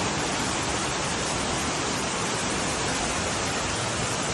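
Steady, even rush of water, as of floodwater pouring or torrential rain.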